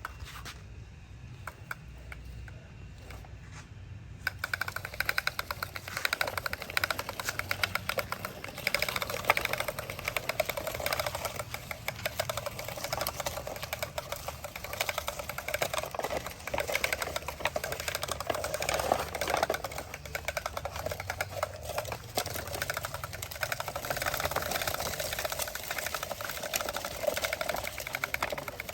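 Small electric motor and plastic gearbox of a toy construction vehicle whirring with a fast, dense clicking, starting about four seconds in and running steadily.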